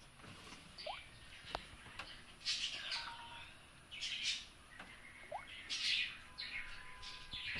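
Birds calling in the trees: a short, noisy call repeated about every one and a half to two seconds, with two brief rising whistles in between.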